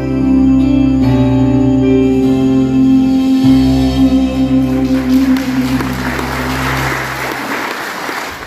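A gospel song ending: a man's voice holds the final note over sustained backing-track chords. From about five seconds in, an audience applauds, fading near the end.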